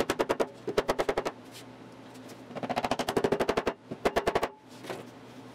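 A mallet knocking plywood side pieces down into the box-joint slots of a plywood base, in rapid runs of sharp knocks with short pauses between, four runs in all, over a faint steady hum.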